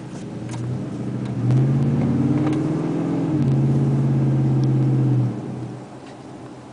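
A 2010 Ford F-150's V8 heard from inside the cab through a Flowmaster 40 Series exhaust, with the truck under throttle: a deep exhaust drone swells, holds a steady loud note for about four seconds with a brief dip in the middle, then drops away suddenly.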